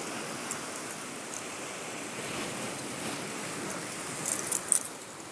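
Surf breaking and washing over rocks, a steady rush of water that swells a little in the middle, with a short cluster of sharp crackles near the end.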